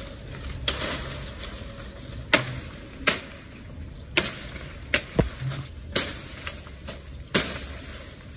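Banana plant being chopped by hand: about nine sharp chopping cracks at irregular intervals as leaf stalks are cut, with leaves rustling between the strikes.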